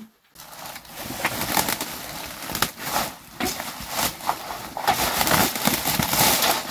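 Crinkling plastic bag and rustling fresh leafy greens, handled and tipped out onto a large aluminium tray, a dense crackle of small sharp ticks that starts a moment in.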